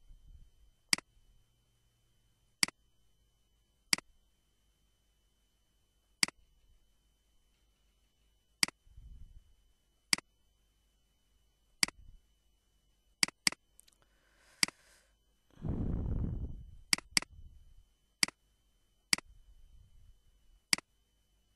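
Computer mouse button clicking: about fifteen single sharp clicks at irregular intervals of a second or two, a few coming in quick pairs. About three-quarters of the way through there is one brief, muffled low rushing noise, louder than the clicks.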